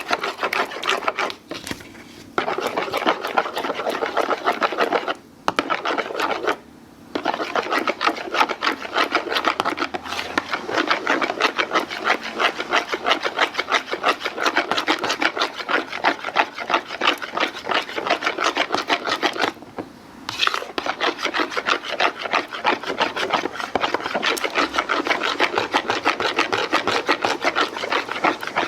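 Pumpkin bread batter being stirred by hand in a mixing bowl: a utensil scrapes through the thick batter and against the bowl in quick, even strokes, stopping briefly a few times.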